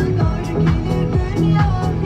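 Background music with a steady electronic dance beat.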